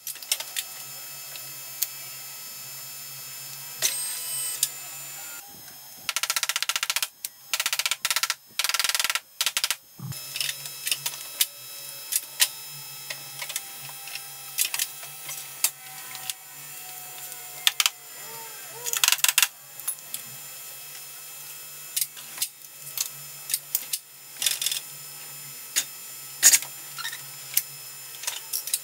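Workshop clatter: irregular metal clicks and knocks, with a run of louder stop-start bursts from about six to ten seconds in, over a steady low hum.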